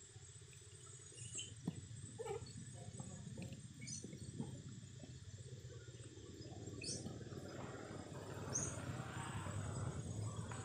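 Short, scattered high chirps and squeaks of small animals over a low steady rumble, with a soft rustling noise growing near the end.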